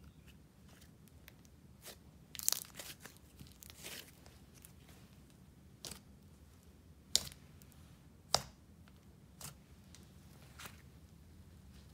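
Soft clay-and-icing slime being stretched, poked and pressed by hand, giving scattered faint crackles and sharp little pops. The loudest pops come about two and a half, seven and eight and a half seconds in.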